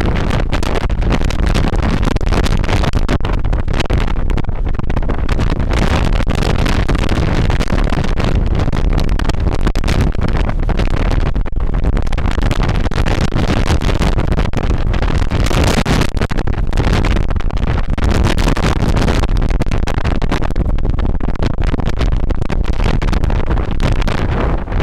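Strong, gusty storm wind buffeting the microphone: a loud, continuous low rumble with a hiss that swells several times as gusts strengthen.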